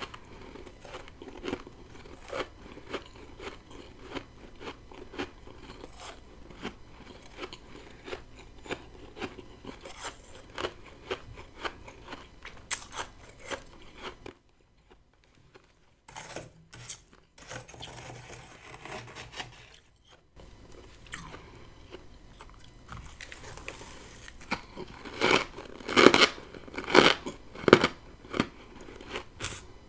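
Close-up crunching and chewing of freezer frost: a steady run of small crisp crunches, a lull of about six seconds in the middle, then several loud crunchy bites near the end.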